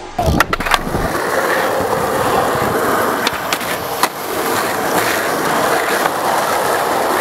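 Skateboard wheels rolling over rough asphalt in a steady rumble. A few sharp clacks from the board come just after the start and again around three and four seconds in.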